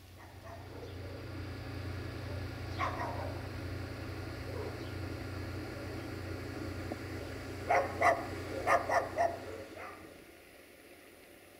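Diesel engine of a Duewag BR628 railcar running with a low steady drone, which fades out shortly before the end. A dog barks once about three seconds in, then several times in quick succession around eight to nine seconds.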